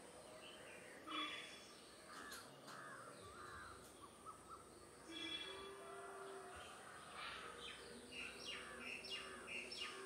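Society finches calling: short harsh chirps, a run of three looping notes about two seconds in, and a quicker series of chirps in the last few seconds.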